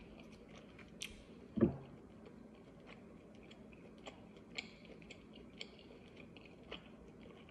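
Close-up mouth sounds of someone chewing lettuce salad: soft crunches and wet clicks scattered every second or so, with one louder low thump about a second and a half in.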